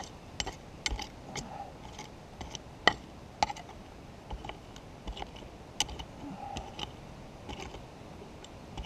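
Hand pick chopping into stony, gravelly ground, digging out a metal-detector target: an irregular series of sharp strikes and scrapes, with a few louder blows a third of the way in.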